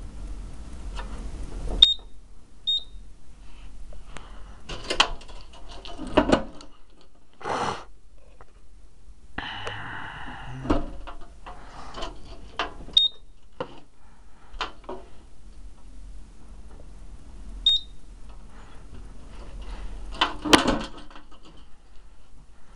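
Scattered clicks and knocks, with four brief high beeps from a Simplex 4006 fire alarm control panel spread through, two near the start and two in the middle.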